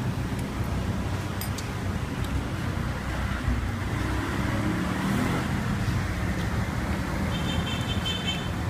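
Steady street traffic noise from passing motor vehicles, with a couple of light clicks about a second and a half in and a short, high, rapid trill near the end.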